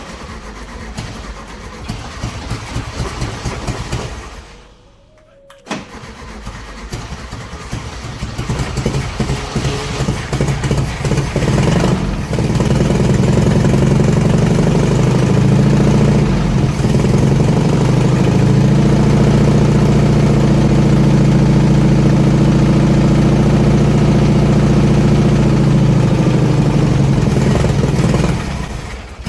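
1971 VW Beetle's air-cooled flat-four engine being cranked over and sputtering in two tries. It catches about twelve seconds in and runs steadily on its newly installed fuel pump, then dies away near the end.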